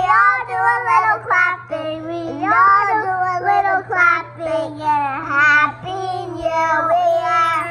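Two young girls singing a song together, holding long notes, the singing stopping near the end.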